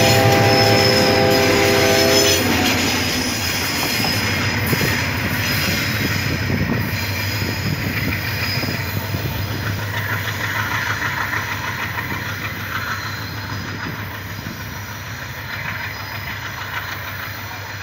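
Diesel freight locomotive's multi-tone air horn sounding as it passes close, cutting off about two seconds in. The train then rolls on with heavy rumbling and rail noise and some wheel squeal, fading steadily as it moves away.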